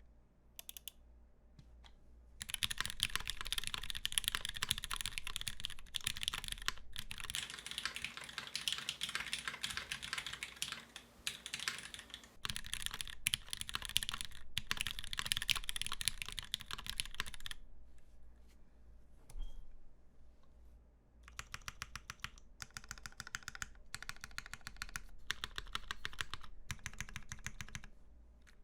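Fast typing on a CMGTKL mechanical keyboard with lubed Ultraglide switches, an aluminium plate on a gummy o-ring mount and GMK keycaps. There is a dense run of keystrokes, a lull a little past the middle, then steadier, more evenly spaced strokes.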